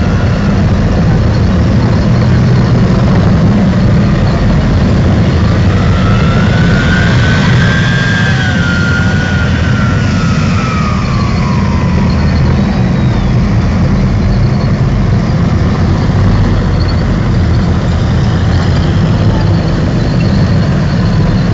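Tracked armoured infantry fighting vehicles driving past, a loud steady low rumble of diesel engines and running tracks. In the middle, for several seconds, a whine rises and then falls in pitch.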